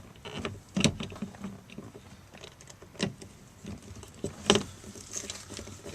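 Irregular knocks and clicks of plastic and metal as a speaker on a home-made adapter bracket is handled and pushed into place in the car door, with three sharper knocks standing out.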